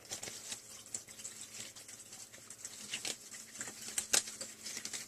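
Faint light clicks and rustling from handling a replacement phone screen glass and small tools, with a couple of sharper ticks about three and four seconds in.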